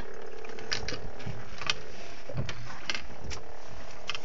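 Small boat's engine running steadily at idle, with scattered short sharp clicks over it.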